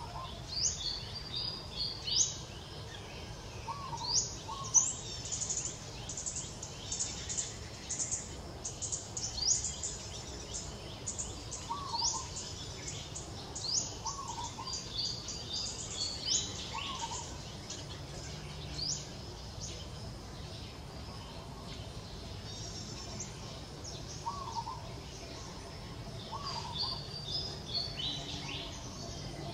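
Birds chirping: many quick, high calls that sweep upward in pitch, coming in clusters throughout, with a short lower call every few seconds, over steady low background noise.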